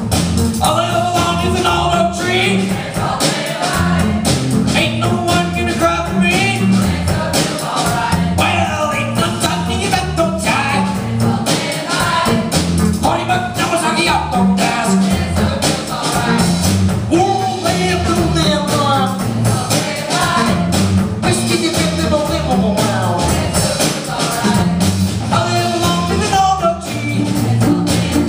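Live band with drums and guitars playing a song at a steady beat, with singing over it.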